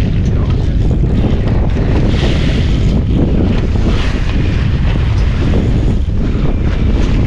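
Heavy wind buffeting the microphone over the steady rush and splash of water churning along the side of a moving boat.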